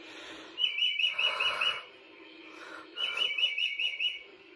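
Bird clock playing a recorded bird song: two phrases of quick repeated chirps, each about a second long, with a pause between.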